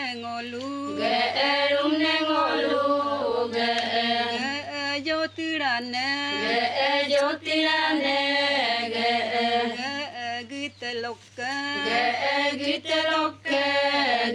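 Adi folk singers performing a Ponung song, a melodic chant of held and gliding notes broken by short pauses for breath, over a steady low hum.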